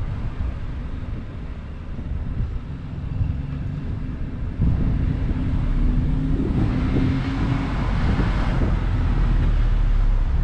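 Low road and engine rumble of a slowly driven car, with wind buffeting the microphone; it steps up louder about halfway through, with a hiss for a couple of seconds after.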